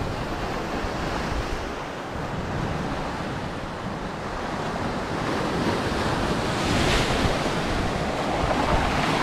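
Lake Superior waves washing and breaking against a rocky shoreline, a steady surf with one louder crash about seven seconds in. Wind buffets the microphone underneath.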